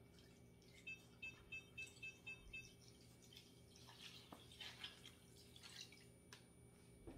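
Water poured from a plastic measuring pitcher into a skillet of dry pasta and ground meat, faint: a quick run of drip-like ticks about a second in, then a soft splashing hiss.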